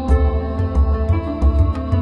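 Background music: sustained tones over a steady low beat of about two pulses a second.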